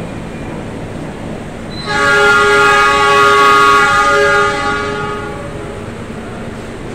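Diesel locomotive horn sounding one long chord-like blast of about two and a half seconds, a train's departure signal, over a steady station rumble.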